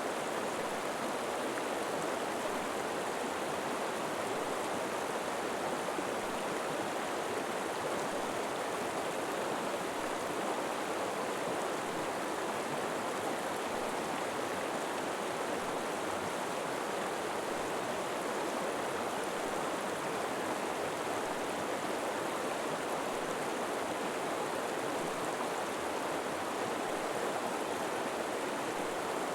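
River water flowing steadily over rocks, an even, continuous rushing with no change.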